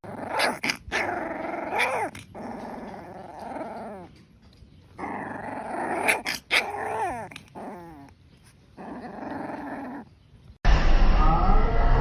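A dog growling in several bouts with short pauses, its pitch bending up and down. Near the end a louder, different noise cuts in suddenly.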